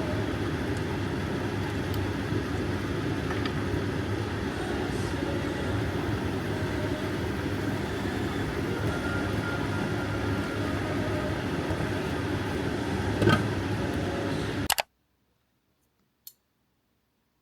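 Steady rumbling background noise, like the ambient noise of riding in a vehicle, which cuts off suddenly near the end, followed by a single faint click.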